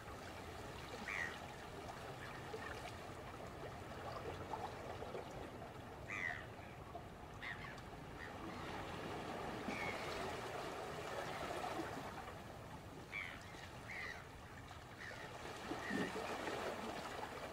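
Seaside ambience: a steady wash of sea water with short bird calls every few seconds.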